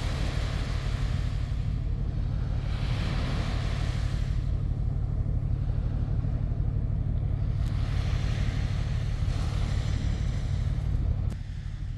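Deep, steady rumble of a large ship passing close by, with the rushing hiss of its bow wave swelling and fading every few seconds. The sound drops and thins suddenly near the end.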